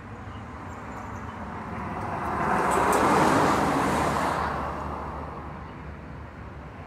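A road vehicle passing on the street: its noise swells over about two seconds, peaks near the middle and fades away again, over a steady low traffic hum.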